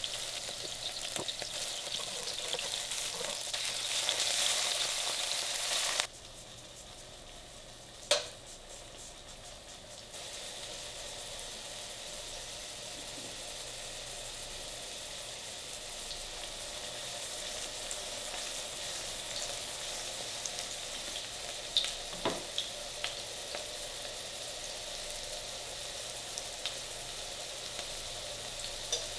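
Poplar fieldcap mushrooms frying in hot cooking oil in a nonstick pan, a steady sizzle. The sizzle drops quieter for a few seconds about six seconds in, and a few sharp clicks come about two-thirds of the way through.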